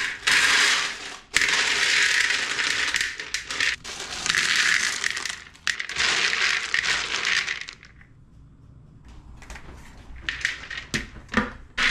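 Frozen cranberries poured from bags into a bowl, rattling in several long pours, with a few scattered clicks of single berries near the end.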